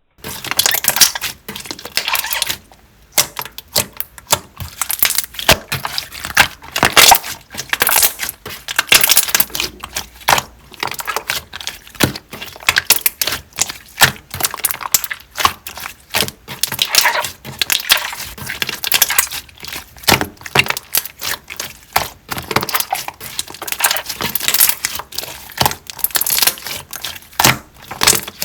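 Hands squishing, pressing and poking a thick 'milk rice cake' (uyu-tteok) slime, making a dense, irregular run of crackling clicks with short pauses.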